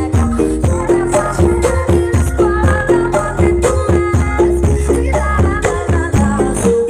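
Loud music played through a large sound-system rig during a sound check: a quick repeating stepped melody over heavy bass and steady percussion.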